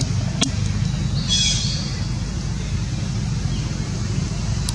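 Steady low background rumble, with one short high-pitched call about a second in.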